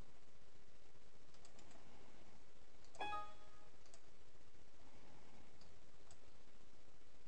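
A Windows system alert chime sounds once, about three seconds in, as a warning pops up that the paste will overwrite cells already holding data. Faint mouse clicks come before and after it.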